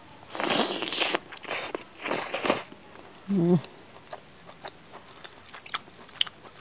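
Close-miked mukbang eating sounds: biting and tearing meat off a curried chicken leg in two rough bursts in the first few seconds, a short hum of the voice about halfway, then small wet lip-smacking clicks of chewing.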